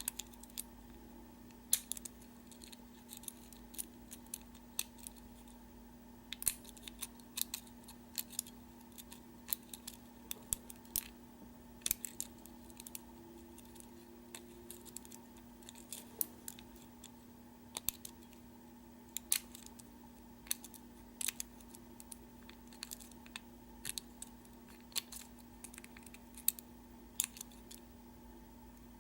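Single-pin picking of a Master Lock 570 padlock with spool pins: irregular, sharp small clicks of the pick and tension wrench working the pins. A faint steady hum runs underneath.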